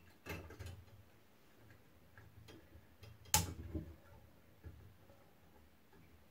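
Glass neon tube being clicked into the sign's tube supports: a few soft clicks and taps, with one sharp click about three and a half seconds in.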